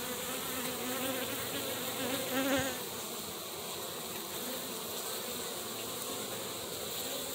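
Honeybees buzzing at a hive entrance, drones among them flying in and out. One bee flies close and its buzz wavers in pitch for the first two and a half seconds, then the colony's hum holds steady.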